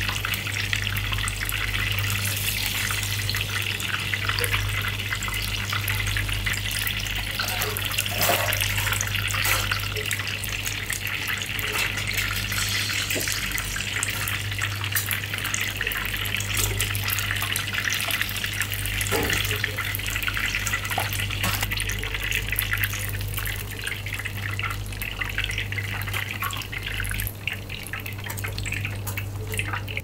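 Water running steadily, as from a kitchen tap into a sink, with a constant low hum beneath it.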